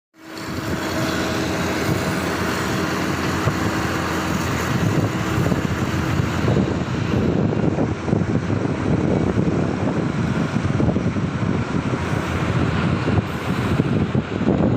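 Liebherr excavator on a floating crane running steadily, a loud machine drone with wind on the microphone; a steady tone sounds for the first few seconds.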